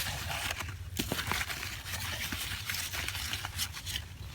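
Rustling and crinkling of garden plants being brushed through, with many small scattered crackles.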